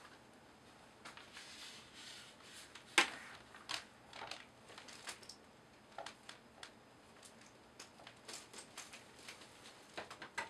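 Scattered soft clicks and rustles of a keyboard and its packaging being handled, with one sharper click about three seconds in.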